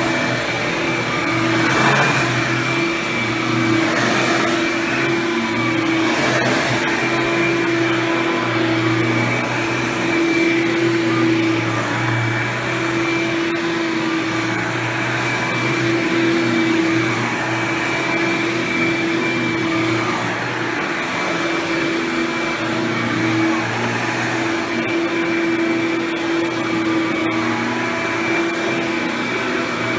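Hoover Power Drive Supreme self-propelled upright vacuum running with a Quadraflex brush roll: a steady motor drone with a high whine that swells and eases slightly every few seconds.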